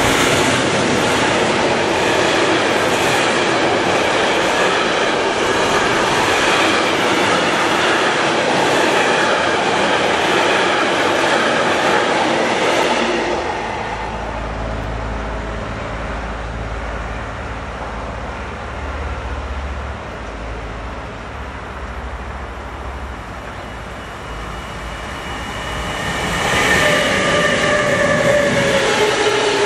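A long container freight train rolls past close by, its wagons clattering over the rails, until about 13 seconds in. A low rumble follows in the lull. Near the end a second freight train passes, an electric locomotive hauling hopper wagons, with a steady high whine over the rolling noise.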